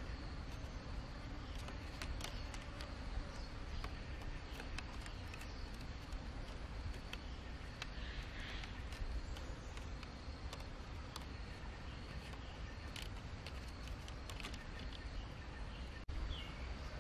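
Thin split-bamboo strips clicking and rustling as they are woven by hand, with scattered light ticks over a steady low outdoor rumble. A few short bird chirps come about halfway through and near the end.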